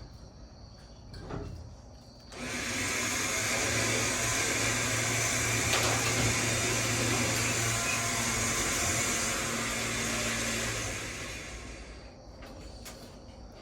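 A motor-driven machine runs steadily for about nine seconds: a low hum under a strong hiss. It starts abruptly a couple of seconds in and winds down gradually near the end.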